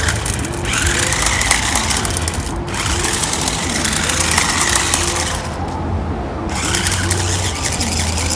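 Toy RC stunt car's small electric motors and gearboxes running in spurts as the controls are worked, cutting out briefly three times.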